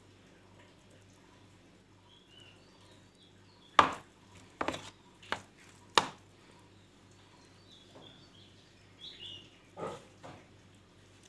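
A metal spoon knocking against a plastic bowl and plate while stuffing is scooped onto bread: four sharp knocks in about two seconds, then a few softer ones near the end.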